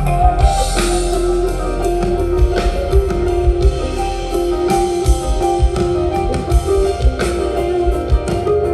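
Rock band jamming live: electric guitar holding sustained notes over a steady drum-kit beat, with no vocals.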